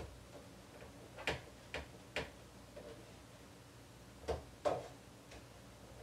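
Light kitchen clatter: three quick knocks and clicks about a second in, then two more a little past four seconds, as things are handled on the counter.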